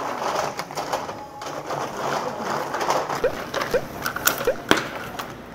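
Whole oysters in their shells clattering and clicking against one another and the metal grill grate as they are piled onto it. Several sharper knocks near the end as tongs shift the shells.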